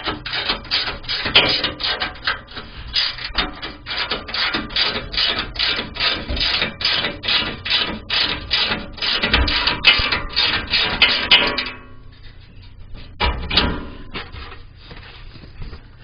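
Hand socket ratchet working 13 mm bolts loose, a rasping ratchet on each back-stroke in quick, even strokes, about three a second. The strokes stop about twelve seconds in, with a short burst again a little after.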